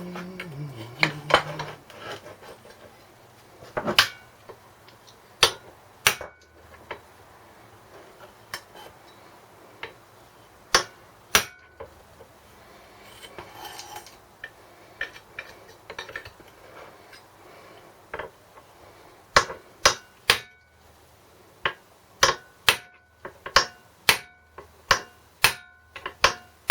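Hammer tapping on metal small-engine parts: sharp ringing knocks at irregular intervals, then a steady run of about two taps a second over the last several seconds, working a stuck part loose.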